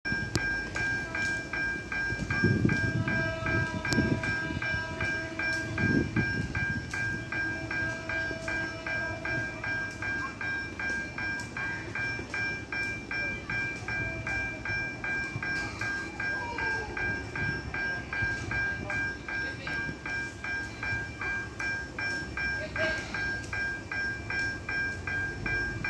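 Electronic railway level-crossing warning bell ringing steadily, about two rings a second, as a train approaches. Louder low-pitched noise swells briefly a few seconds in.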